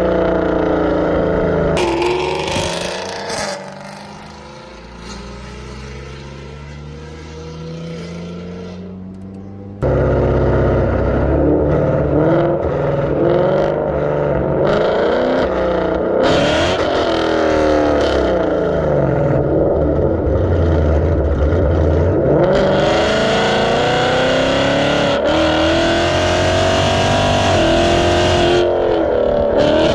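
Ford Mustang GT's 5.0 V8 with Kooks long-tube headers accelerating and revving, its exhaust note rising and falling in pitch again and again. A quieter stretch in the first third ends with a sudden jump back to the loud engine note about ten seconds in.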